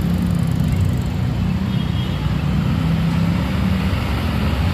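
Steady low rumble of a vehicle engine with road noise, even throughout.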